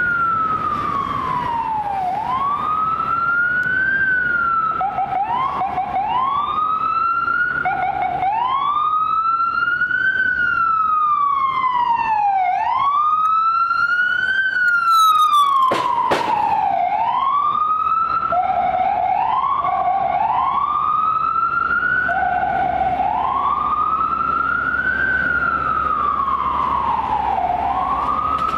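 An FDNY EMS ambulance's wail siren rising and falling every two to three seconds, several times cut short and restarted from the low note. There is a brief sharp click about sixteen seconds in.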